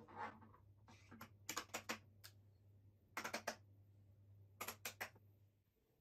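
Metal MFT-style table clamps being dropped into the dog holes of a perforated workbench top and locked down on a wooden router template: three quick clusters of sharp clicks about a second and a half apart.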